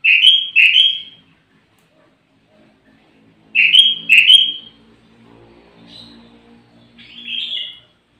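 Sooty-headed bulbul calling: a loud, bubbly double-note phrase at the start and again about three and a half seconds in, then softer, shorter calls near the end.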